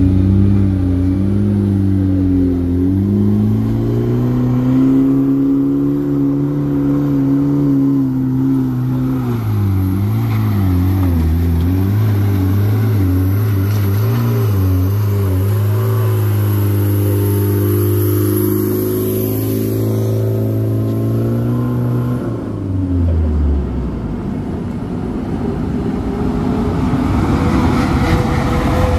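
Engine of a laden small pickup truck labouring up a steep grade in low gear, its pitch dipping and recovering a few times before falling away about three-quarters of the way through. Then a heavy Mitsubishi Fuso truck's diesel engine grows louder as it climbs toward the camera near the end.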